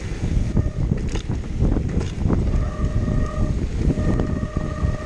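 Downhill mountain bike descending a rough trail: a steady rumble of wind and tyres on the microphone, with knocks and rattles of the bike over bumps. About halfway in, a steady buzzing tone comes in and breaks off briefly a couple of times.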